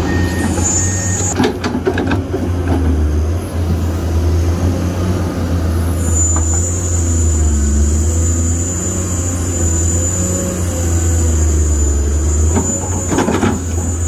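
Komatsu PC210 hydraulic excavator's diesel engine running under load with a steady low drone as it loads soil into a dump truck. Rattling knocks of soil and stones sound about a second and a half in and again near the end, and a thin high whine comes in about six seconds in and holds.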